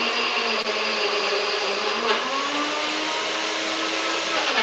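Nutribullet high-speed blender running, grinding oat cakes, pecans and almonds down to a fine crumb. Its motor pitch rises a little about two seconds in, and it stops near the end.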